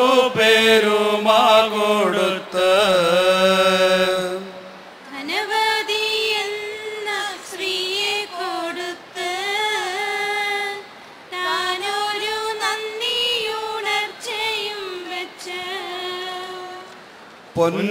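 A group of singers chanting a song together from song sheets. Low men's voices lead for the first few seconds, and after a short break higher voices carry on in phrases with brief pauses between them.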